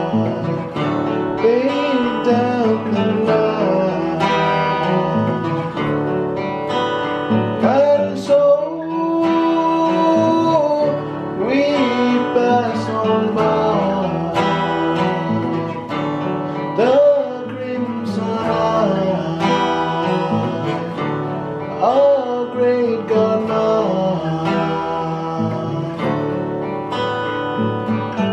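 Several acoustic guitars played together, with a man singing over them.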